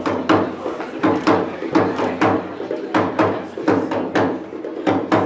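Dikir barat percussion: Malay frame drums (rebana) beaten in a steady rhythm of about two to three strokes a second, mixing deep thumps and sharper slaps, over a steady ringing hum.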